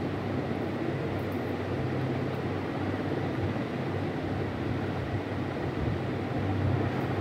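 Steady hum and rushing air noise of a running fan, with a low drone that swells and fades slightly.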